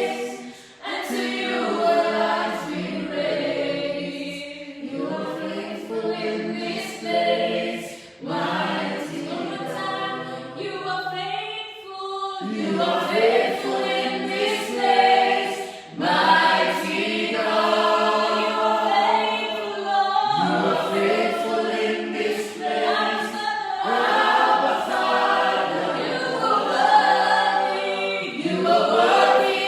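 Church praise team singing a worship song together as a choir, in phrases with short breaks between them.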